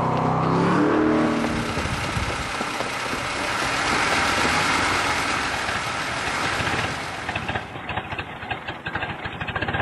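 Car engine revving up at the start, then running on with a steady rushing drone. In the last couple of seconds it breaks into irregular sputtering clicks, the sign of a car running out of fuel.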